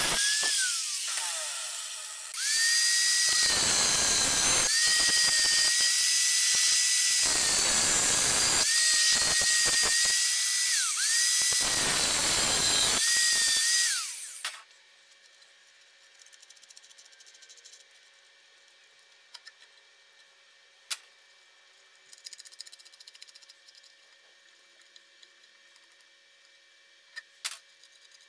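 A handheld electric power tool running at speed with a steady high whine. It eases off and comes back up a few times, then is switched off about halfway through. After that only a faint hum and a few light clicks are left.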